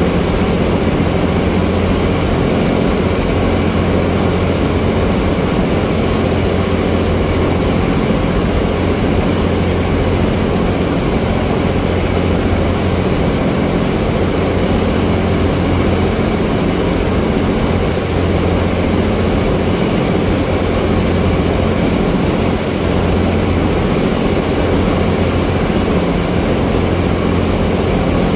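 Ferry's engine running steadily at cruising speed, a loud low drone, over the rushing of the churning wake behind the stern.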